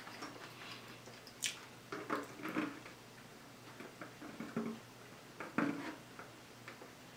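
Quiet sips and swallows of water drunk through a straw from a large cup: a few short, faint sounds spread out a second or so apart, with a short sharp click about a second and a half in.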